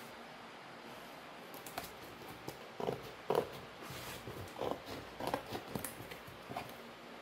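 Scissors cutting the packing tape on a cardboard shipping box while the box is handled: a string of short, irregular rasps and taps that starts about a second and a half in.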